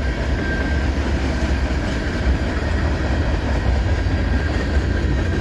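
CN freight train's cars rolling past at close range: a steady rumble of wheels on rail with a light clickety-clack.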